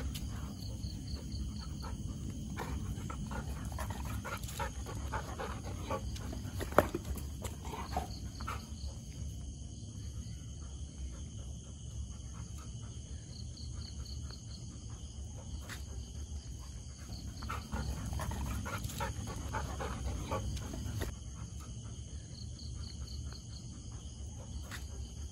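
A Labrador retriever and a Chippiparai dog play-fighting, growling and snarling at each other in bursts, from a few seconds in and again past the middle. There is a sharp knock about seven seconds in.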